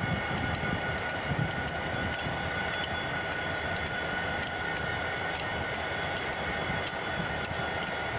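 Diesel locomotives, among them a new Southern Pacific EMD GP60, running close by with a steady low rumble and a high whine. A faint ticking recurs about twice a second.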